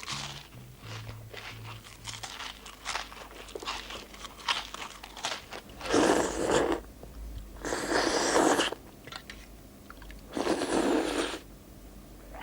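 Close-up crunching and chewing of crisp food: a run of small crunches, then three louder crunching bites, each about a second long, near the middle and end.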